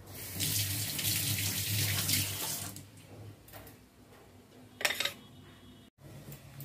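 Running water, a steady rushing for about two and a half seconds that then fades away, followed by a brief noise about five seconds in.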